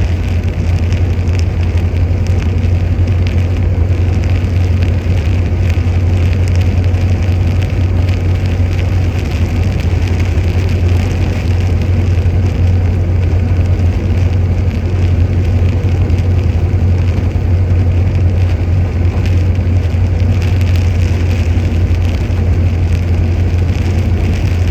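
1926 Ford Model T's four-cylinder engine running steadily on the road, a constant low drone, with rain falling on the car in a continuous hiss.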